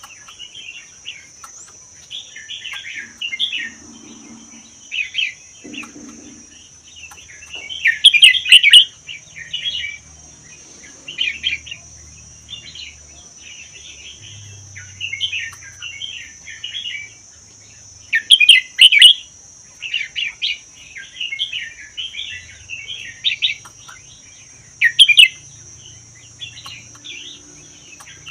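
Red-whiskered bulbul singing short, bubbling warbled phrases every second or two, a few of them much louder. A steady high-pitched drone runs underneath.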